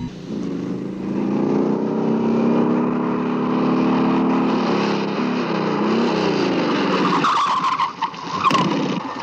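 Cartoon sound effect of a small motorcycle engine running steadily, its pitch dropping about five seconds in as it passes, then a tyre screech near the end.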